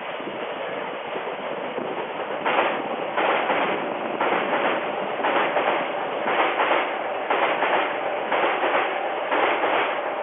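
Odakyu Line electric train passing, a steady rush that about two and a half seconds in turns into regular clattering of the wheels over the rail joints.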